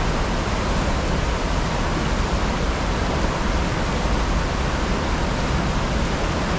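Steady rush of river rapids, the water's noise even and unbroken.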